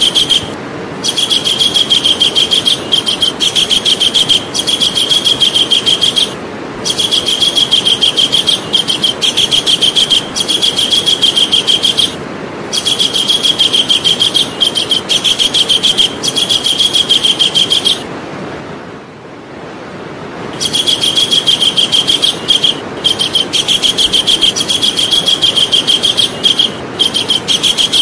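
Javan kingfisher calling: loud runs of rapid, sharp high notes, each run lasting several seconds. Short pauses fall between the runs, and a longer pause comes about two-thirds of the way through.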